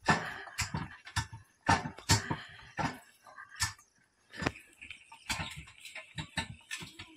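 Bullock cart drawn by a pair of bulls rolling over a dirt track: irregular wooden knocks and clatter from the cart and yoke, with hoof steps.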